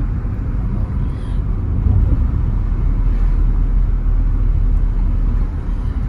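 Steady low rumble of engine and tyre noise inside a moving car's cabin.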